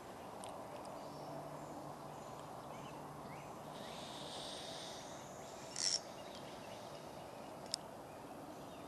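Steady outdoor background noise by a creek. A short, sharp sound about six seconds in is the loudest thing, and a single click comes near the end.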